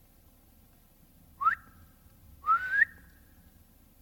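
A person whistling twice through the lips, each whistle sweeping up in pitch, the first short and the second longer and wavering. A hunter's whistle to make a walking deer stop.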